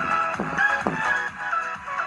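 Electronic dance music played loud through a small, bare Aiwa full-range speaker driver, turned up toward the limit of its power handling, with a steady kick drum about twice a second under a bright repeating melody.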